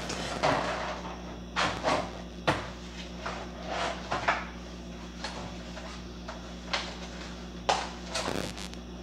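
Kitchen clatter of cupboard doors, drawers and pans being handled: a scattering of short knocks and bangs at uneven intervals, over a steady low hum.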